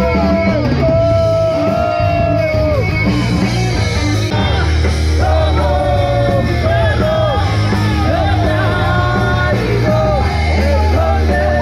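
Loud music with sung vocals over a steady heavy bass, with people yelling along.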